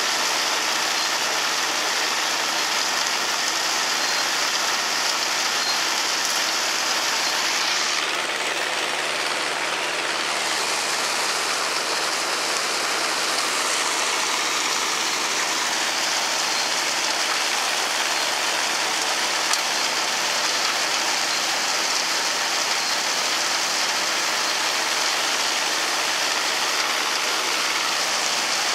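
Forage blower running steadily while chopped corn silage is fed into it from a forage wagon. A continuous rushing hiss of silage being blown up the pipe into the silo sits over a steady machine hum.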